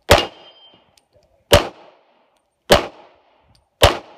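Four single pistol shots about 1.2 seconds apart, each sharp crack followed by a short echo.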